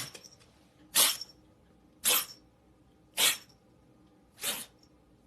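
A pet animal making short, sharp sneeze-like bursts, four times about a second apart.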